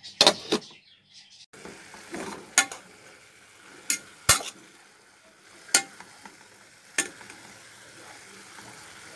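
Metal pot lid and fork clinking against a metal pot while callaloo and vegetables steam in butter over low heat: a couple of sharp clinks at the start, then a faint steady sizzle from the pot with about five more scattered clinks as the vegetables are stirred.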